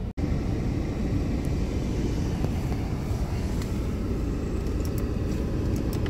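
A small van's diesel engine idling steadily, heard from inside the cab. The sound drops out for an instant just at the start.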